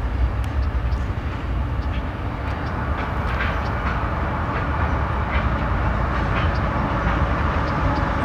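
Freight train with CSX diesel locomotives approaching and crossing: a steady low rumble that grows a little louder, with scattered clicks of wheels on the rails.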